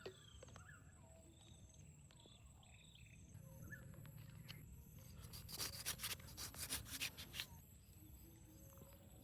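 Faint outdoor ambience with a steady high insect whine; about five and a half seconds in, two seconds of scratchy rubbing noise.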